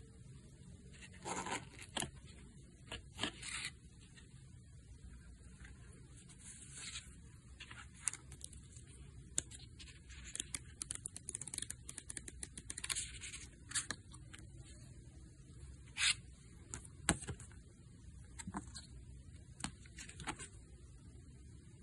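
Paper rustling and crisp page flips from a small instruction booklet being handled and leafed through. Light scrapes and taps of paper and card come at irregular moments, the sharpest about sixteen and seventeen seconds in.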